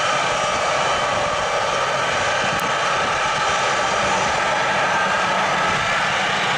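Boeing C-17A Globemaster III's four Pratt & Whitney F117 turbofans running at taxi power as it taxis: a steady jet whine with several high tones over a broad rush of engine noise.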